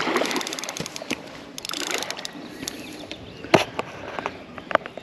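Spinning reel clicking rapidly while a hooked carp is played on the rod, in two spells: one at the start and one about two seconds in. A few single sharp knocks follow later.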